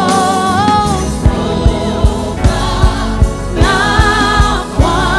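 Gospel worship music: voices hold long, wavering sung notes over a steady drum beat that comes in about a second in, roughly two to three beats a second.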